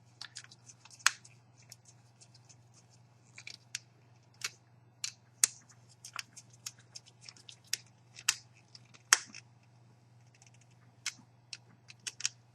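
Small screwdriver tightening the screw terminals on a CCTV video balun over crimped Cat5 cable connectors: a scatter of light, irregular clicks and scrapes, over a faint steady hum.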